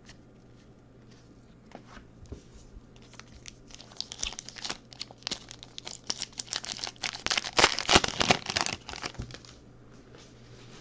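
Trading card pack wrapper being torn open and crinkled by hand. The crinkling starts about three seconds in, grows to its loudest near the end, then stops.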